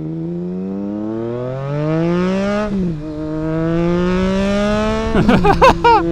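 Triumph Trident 660's inline three-cylinder engine through a DIY custom exhaust with no dB killer, accelerating under load. The pitch rises, drops at an upshift just under three seconds in, climbs again and then holds steady. About five seconds in there is a brief burst of loud, irregular noise.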